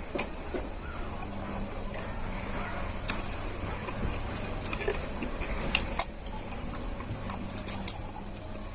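Eating sounds: scattered short clicks and smacks of chewing and mouth noises over a steady low background hum, the sharpest about 3 s, 6 s and 8 s in.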